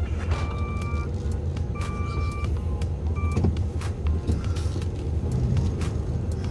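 Truck engine running steadily, heard from inside the cab. For the first few seconds a repeating electronic beep sounds about every second and a half, then stops about three and a half seconds in.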